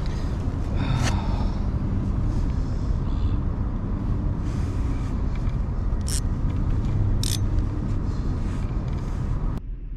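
Wind rumbling on the microphone over the wash of sea waves against rocks, with a few sharp clicks about a second, six seconds and seven seconds in. The sound drops away suddenly near the end.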